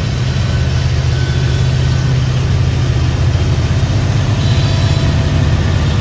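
Union Pacific diesel locomotive's engine running with a loud, steady, deep drone as it approaches and draws level.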